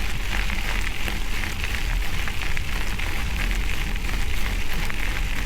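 Wind buffeting a bike-mounted camera's microphone as a bicycle rolls along, a steady low rumble, with the tyres crackling over a rough road surface.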